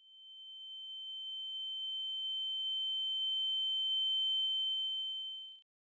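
A steady, high-pitched electronic tone that swells in gradually over about four seconds, then fades out shortly before the end.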